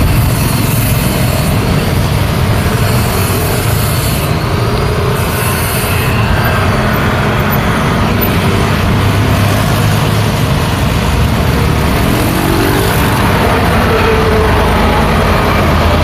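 Busy road traffic of trucks, buses, cars and motorcycles passing close by: a steady, loud rumble of engines and tyres that never lets up.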